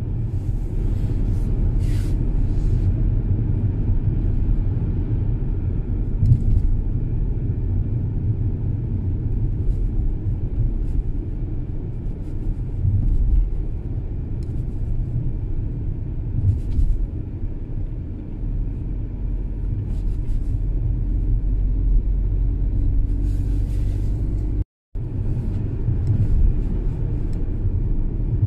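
Car interior noise while driving: a steady low rumble of engine and tyres on the road, heard from inside the cabin, with a few faint clicks. The sound drops out for a moment near the end.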